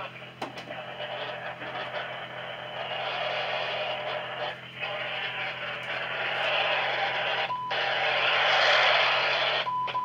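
Weather radio receivers hissing with static over a steady low hum, with faint broadcast audio buried in the noise. Two short beeps come near the end.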